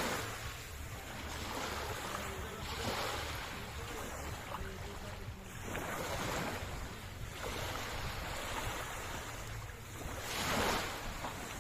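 Sea waves washing onto the shore, swelling and fading every three to four seconds, over a steady low rumble of wind on the microphone.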